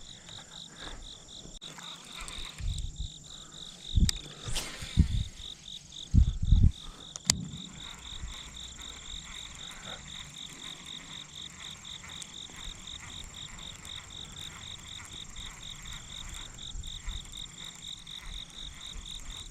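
Insects chirping in a steady pulsing trill, several pulses a second. A few low thumps, the loudest sounds, come between about four and seven seconds in.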